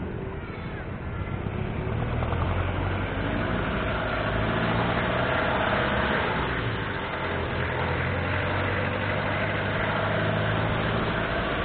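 Road traffic heard from a bicycle in the lane: steady engine and road noise from nearby cars and jeepneys, louder from about two seconds in.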